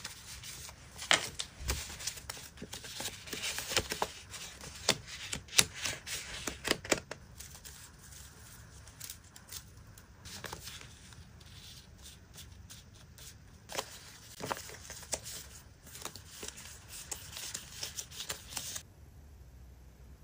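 Stacks of paper stickers and die-cut paper frames handled and flicked through by hand: crisp paper rustling with many sharp taps and flicks, busiest in the first several seconds and again later on. The handling stops a little before the end and it goes quiet.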